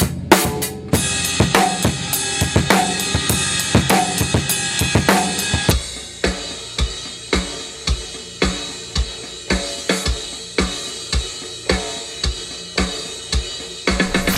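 Rock drum kit being played for a studio recording: busy snare and tom hits under ringing cymbals at first, then from about six seconds in a steady beat of strong hits about twice a second with lighter cymbal work.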